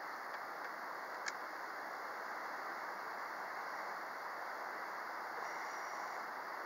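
Steady rushing of river water, with a single sharp click about a second in.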